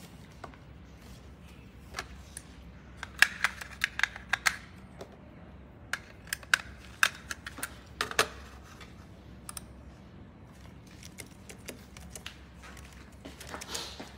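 Clusters of sharp plastic clicks and snaps from a wireless mouse being handled, its battery and cover going in, then a few light taps on a compact wireless keyboard near the end.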